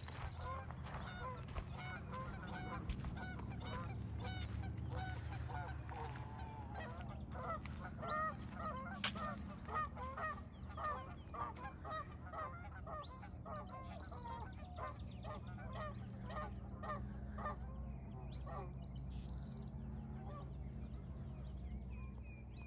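A flock of geese honking, many calls overlapping and busiest in the middle, with a few high bird chirps now and then over a steady low hum.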